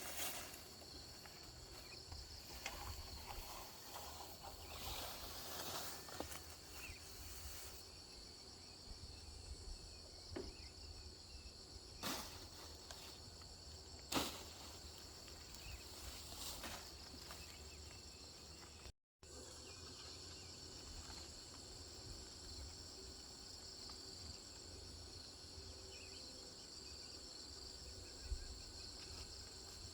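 Steady chirring of insects in the forest, high-pitched and unbroken, with a few sharp knocks or clicks, the loudest about halfway through. The sound drops out completely for an instant about two-thirds of the way through.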